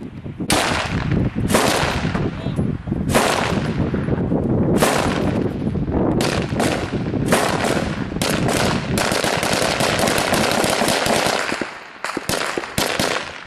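Close-range small-arms gunfire: single shots and short bursts at first, then rapid sustained automatic fire for a few seconds. The fire thins out near the end to a few last shots.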